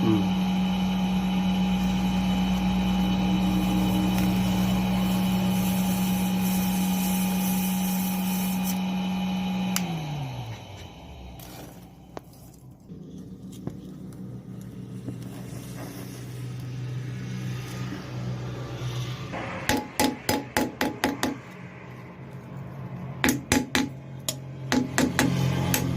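A machine's motor hums steadily, then winds down and stops about ten seconds in. Later come two quick runs of hammer blows on metal, several ringing strikes a second, the loudest sounds here.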